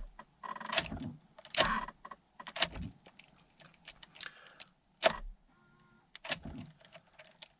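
Honda Accord ignition key being worked in its switch: keys jangling, with a series of sharp electrical clicks from the ignition switch at the steering column, about one a second at first and sparser later, and no engine starting. The mechanic attributes the noise to a faulty ignition switch rather than a sticking relay.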